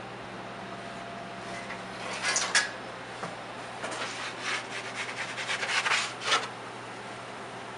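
Pizza peel scraping across an oven's deck as the pizza is slid in: one short scrape about two and a half seconds in, then a quick run of scrapes from about four to six and a half seconds.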